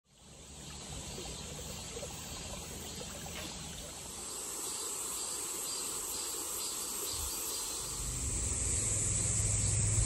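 Steady high-pitched insect chorus with crickets chirping in a regular pulse, fading in at the start. A low steady hum comes in near the end.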